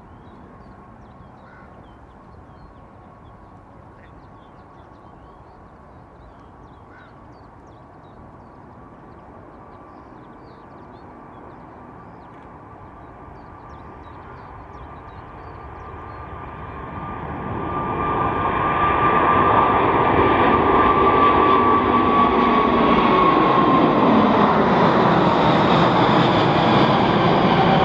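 Airbus A380-800 four-engine jet on its takeoff run, its engine noise and whine growing steadily louder over several seconds. It then stays loud as the aircraft passes, with the engine tones sliding down in pitch.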